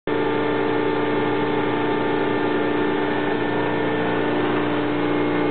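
Hydraulic pump of a Samco 75 die-cutting press running with a steady hum of several held tones.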